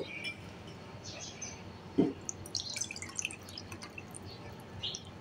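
Milk poured from a steel vessel into a small ceramic bowl, a faint trickle with small drips and splashes. A single light knock of a vessel being handled about two seconds in.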